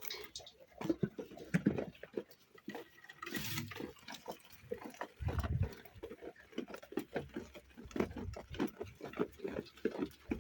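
Sheep eating wheat: many quick, irregular crunching chews, with a short hiss about three and a half seconds in and a low rumble partway through.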